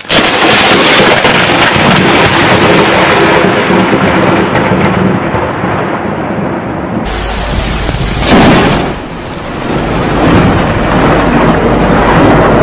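Thunder rumbling loudly over rain. About seven seconds in, the sound cuts to another storm recording, where a louder thunderclap swells up a second later and rolls on.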